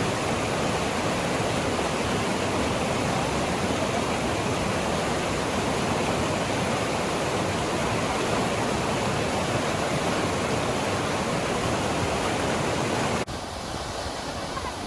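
Waterfall's steady rush of falling water, a dense even roar. About 13 seconds in it cuts suddenly to a quieter rush.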